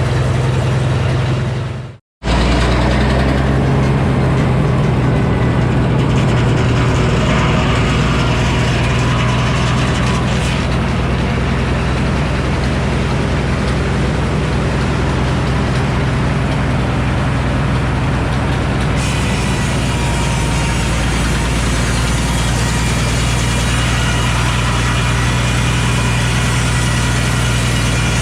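Frick sawmill running steadily, its power engine giving a constant low drone under the noise of the mill. The sound drops out briefly about two seconds in, then picks up again.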